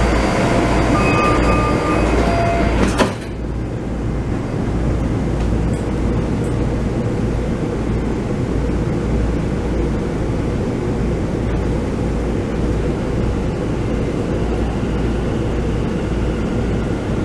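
Airport MRT train running, heard from inside the passenger car: a steady rumble with a faint hum. Short high steady tones sound in the first two seconds, and a sharp knock comes about three seconds in, after which the running noise is quieter.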